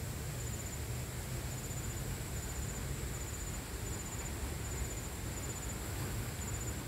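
A thin, steady high insect trill that swells into short pulses a little more than once a second, over a low outdoor rumble.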